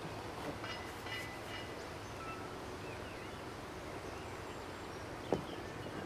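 Outdoor ambience at a wooden pigeon loft: a steady noise bed with a few faint bird chirps, and one sharp knock about five seconds in.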